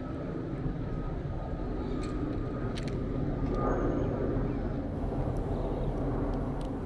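Steady low rumble of outdoor city ambience, with a few faint clicks scattered through it.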